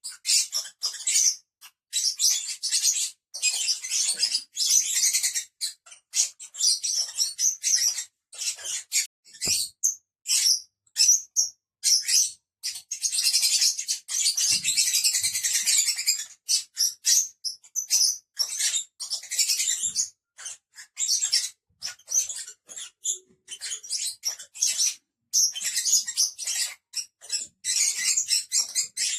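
Lovebirds chattering: a dense, almost unbroken run of shrill, high-pitched chirps and squeaks with only brief pauses.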